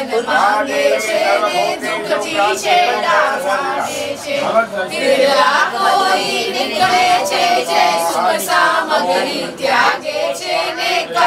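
A group of voices, mostly women, singing a song together, many voices overlapping.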